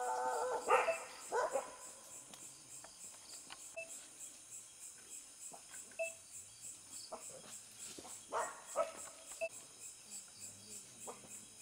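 Scattered short animal calls, one every second or few, over a quiet background.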